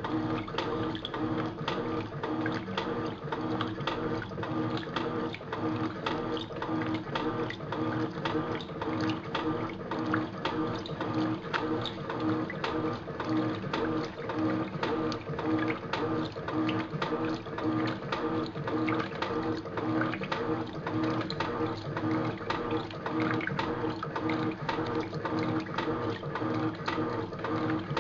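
Electrolux top-loading washing machine running its wash cycle: a steady motor hum with strong tones and a fast, regular clicking, several ticks a second, over water sloshing. The machine's bearings are worn out.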